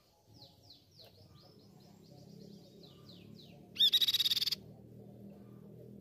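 Crescent-chested babbler calling: a run of quick, falling whistled notes, about three a second, then, about four seconds in, a short, loud, harsh rattle. A steady low hum lies underneath.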